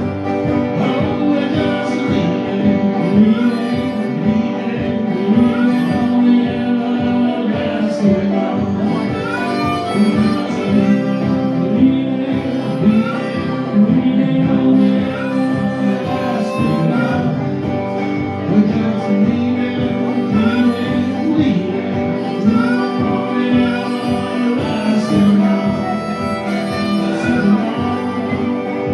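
Live blues band playing an instrumental break: a lead line with frequent pitch bends over steady guitar accompaniment.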